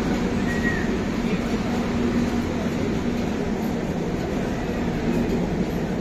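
Railway station ambience: a steady low hum and rumble from passenger trains standing at the platforms below, with a crowd murmuring.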